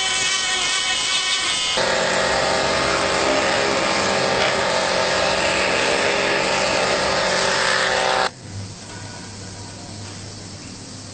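Motor of a sheet-metal notching machine running with a steady whine that changes to a louder, fuller tone about two seconds in, then cuts off suddenly about eight seconds in, leaving a low hum.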